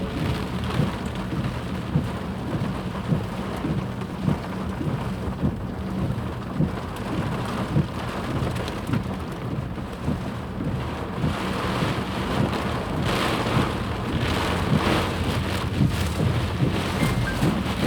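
Flash floodwater rushing: a steady, rumbling noise thick with low thuds. From about two-thirds of the way in it swells into louder hissing surges.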